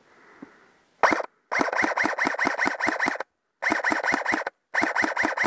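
Airsoft rifle firing in quick strings of shots, about six or seven a second, starting about a second in: one short pair, then three longer strings with brief pauses between them.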